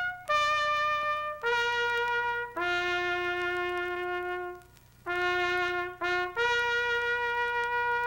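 Background music: a single brass instrument playing a slow tune of long held notes, one at a time, with a brief break a little past halfway.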